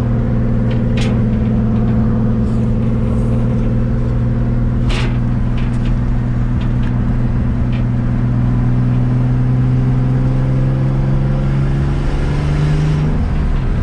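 Car engine running steadily under load while driving, its note creeping up and then dropping suddenly near the end, as with a gear change in a manual five-speed.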